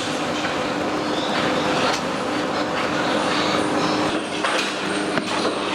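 Ambient sound inside an intensive pig shed: a steady machine hum with scattered metallic clicks and rattles.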